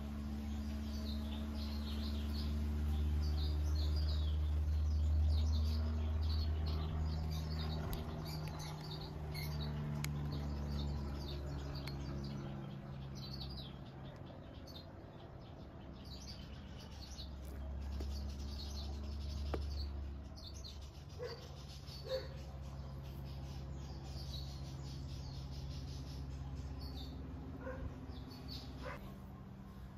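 Small birds chirping over and over, over a low droning hum made of sustained tones that shift to a new pitch every few seconds.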